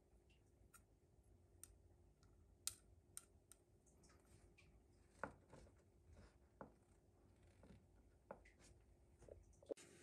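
Faint, scattered clicks and taps of long metal tweezers and a small glass vial being handled over a wooden tabletop, some taps with a short glassy ring.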